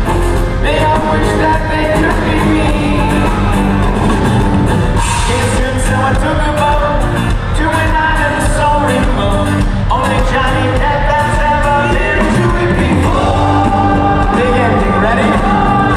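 Live pop-rock band playing loudly, with a lead singer and a group of voices singing along.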